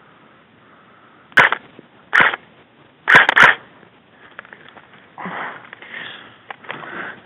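Several sharp, loud bursts, each a crack with a short hiss: one a little over a second in, another just after two seconds, then three in quick succession around three seconds. Fainter rustling follows.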